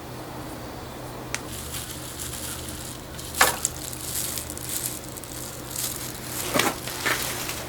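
Rustling handling noises with a few sharp clicks and knocks, over a steady low hum.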